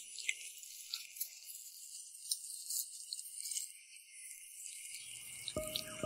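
Faint high hiss with scattered light clicks, then music comes in near the end with a few struck, ringing notes.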